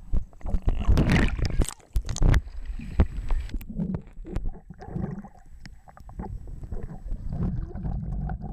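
Muffled underwater sound of lake water around a submerged camera: splashing and bubbling for the first couple of seconds, then quieter low gurgles and rumbles.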